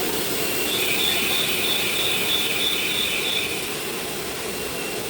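Steady machine noise of a cable production workshop, with a high-pitched pulsing squeal or beeping tone that starts just under a second in and stops about three seconds later.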